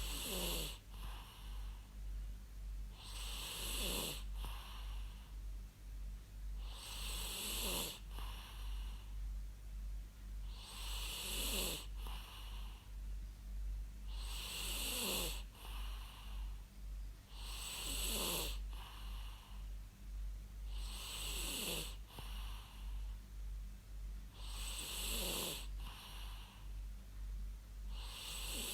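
A person snoring in a steady rhythm, about one snore every three and a half seconds. Each snore has a breathy hiss and a pitch that falls, and a short softer breath follows it. A steady low hum runs underneath.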